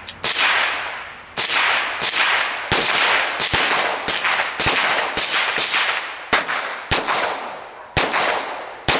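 Smith & Wesson M&P15-22 semi-automatic .22 LR rifle firing about fifteen shots at an uneven pace, roughly one every half-second to a second, each crack trailing off in a long echo.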